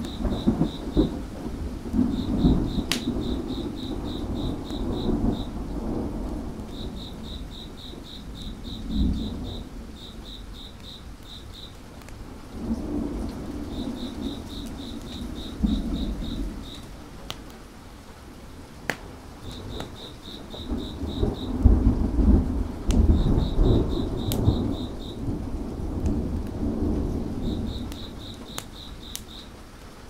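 Steady rain with thunder rolling in repeated swells, loudest about two-thirds of the way through. Over it an insect chirps in short, evenly pulsed trains, and a wood fire gives a few sharp crackling pops.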